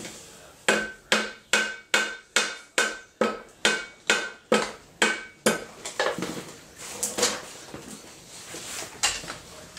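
Rubber mallet striking the aluminium housing of a MerCruiser Alpha One Gen 2 outdrive, knocking the upper drive loose from the lower unit. About a dozen steady blows come roughly two a second, each with a short metallic ring, then a few lighter, irregular knocks.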